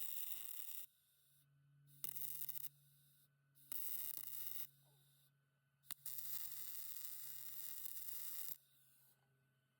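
Wire-feed welder arc crackling in four separate bursts: three short ones of under a second, then a longer one of about two and a half seconds, over a steady low hum, as stitch welds are laid on the trailer perch.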